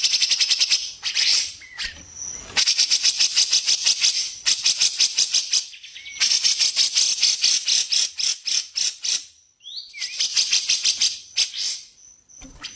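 Songbird's rapid rattling trills, about ten notes a second, in bouts of one to three seconds, with short whistled slurs between the bouts.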